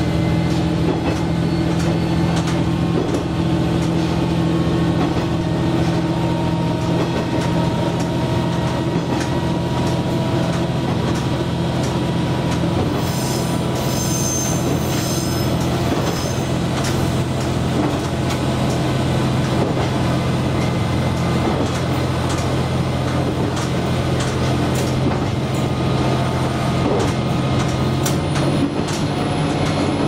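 Diesel railcar running steadily, its engine a constant low drone, with scattered clicks from the wheels over the rails. About halfway through comes a few seconds of high-pitched wheel squeal as the train takes a curve.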